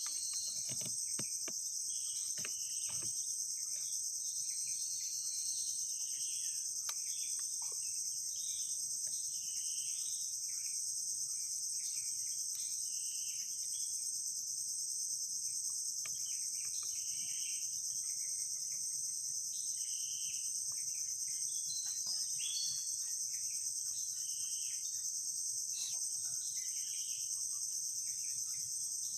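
Steady, high-pitched chorus of crickets, with short whistled chirps scattered irregularly throughout and a few soft knocks in the first few seconds.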